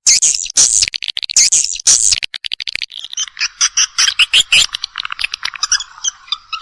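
Swiftlet call recording: edible-nest swiftlets twittering in rapid, dense high chirps. About three seconds in, the separate sharp chirps give way to a continuous buzzing trill. This is a call sound of the kind played to lure swiftlets into a nesting house.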